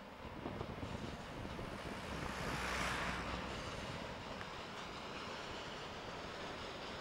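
Two SNCF BB 60000 diesel locomotives working in multiple pass by, their noise swelling to a peak about three seconds in. The steady rumble of a long rake of tank wagons rolling past follows.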